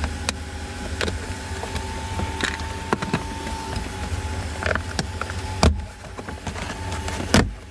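Sharp plastic clicks and knocks as a pick tool pries at the sun-visor clip and headliner trim of a 2016 Toyota Camry, with two louder knocks late on, over a steady low hum.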